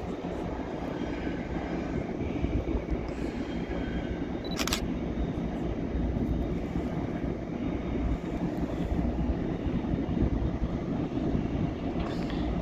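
Steady low rumble of a pair of diesel locomotives running light across a rail yard at a distance, with a faint steady hum. A single sharp click about four and a half seconds in.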